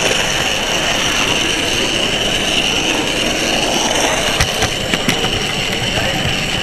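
Model railway locomotive with an onboard camera running along the track: a steady running noise with a constant high whine, and a few sharp clicks about four and a half to five seconds in as the wheels cross pointwork.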